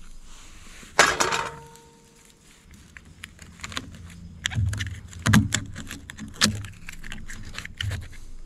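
Oyster shells clicking and cracking as a knife prises open clustered oysters on a wooden board. The loudest is a sharp crack about a second in with a brief ringing tone, followed by a run of clicks, scrapes and knocks.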